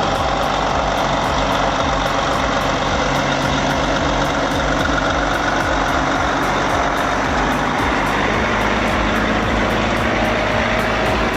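Logging truck's diesel engine running steadily, with a constant low drone and no sharp events.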